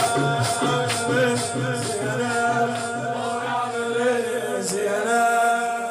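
Male voice chanting a Shia latmiyya (shoor) in long, held melodic notes that bend up and down, with a few sharp beats behind it.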